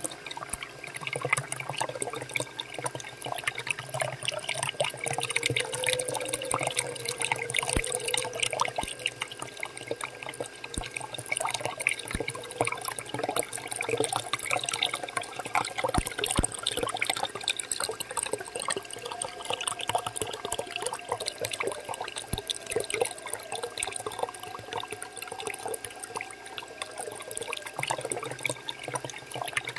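Water pouring steadily from the outlet pipe of a small homemade electric water pump and splashing into a shallow puddle, with a faint steady hum underneath.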